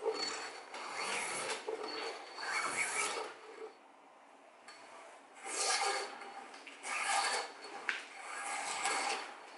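Homemade drawknife with a planer-blade cutter drawn along a branch, shaving off wood in repeated rasping strokes about a second apart, with a pause of about two seconds near the middle.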